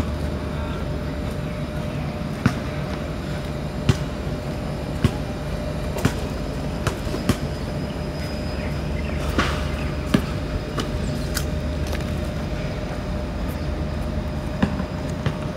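Steady rumble of a moving vehicle as heard from inside it, with a constant hum and scattered sharp knocks and rattles.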